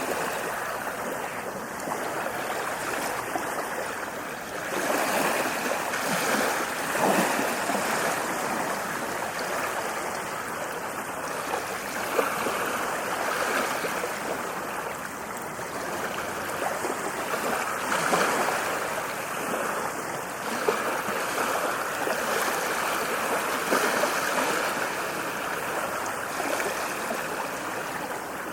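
Ocean waves breaking and washing up a beach, a steady rush of surf that swells louder every few seconds as each wave comes in.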